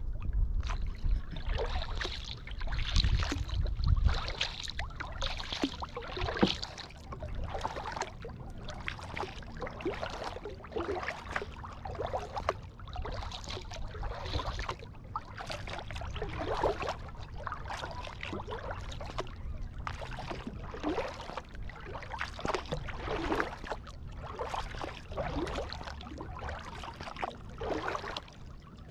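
Kayak paddle blades dipping and splashing in the water, stroke after stroke in a steady rhythm of about one a second. A low rumble sits under the first few seconds.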